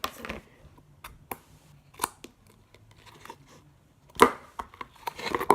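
Clear glitter slime being squeezed and pulled by hand, giving scattered sticky clicks and squelches with quiet gaps between them. The loudest comes about four seconds in.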